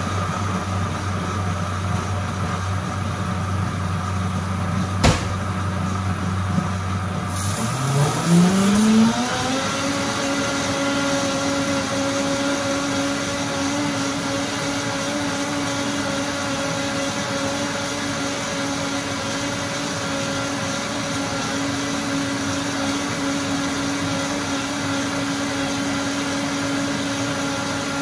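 High-powered automatic blender running its smoothie program on a green smoothie with whole kiwi. It runs at low speed for about seven seconds, with a click about five seconds in, then the motor pitch rises over about two seconds to a steady high-speed whine.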